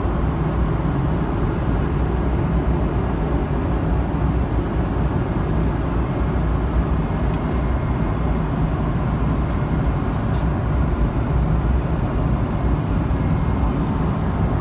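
Steady cabin noise inside a Boeing 777-300ER airliner in flight: a constant low rumble of airflow and its GE90-115B engines, with a faint high steady tone and a few faint ticks.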